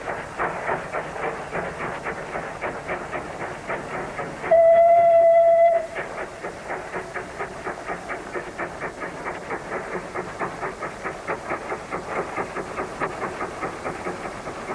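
Queensland Railways A10 No. 6, a small 1860s Neilson steam locomotive, working hard up the grade with steady, rhythmic exhaust beats. Midway it gives one loud whistle blast lasting over a second.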